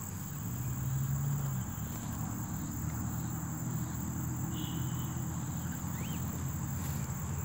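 Steady high-pitched chirring of insects, with a low rumble underneath that is loudest about a second in.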